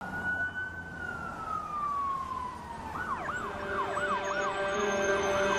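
Emergency vehicle siren: a long tone that slowly falls in pitch, then switches about halfway through to a fast yelp, rising and falling about two and a half times a second.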